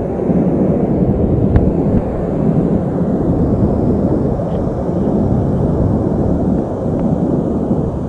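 Steady low roar of a waterfall pouring into its plunge pool.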